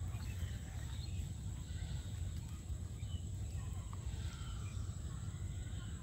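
Rural outdoor ambience: a steady low rumble with faint animal calls over it, a few more of them in the second half.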